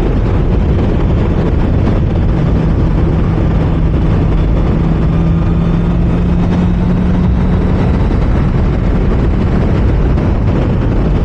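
Honda CBR650R's inline-four engine running at a steady cruising note under the rider, held to moderate revs during its break-in, with wind and road noise around it.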